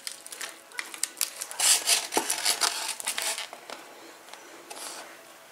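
A serving utensil scraping and aluminium foil crinkling as a slice of bacon-wrapped meatloaf is lifted onto a foam plate, in a run of quick rustling scrapes that is busiest in the middle and dies down near the end.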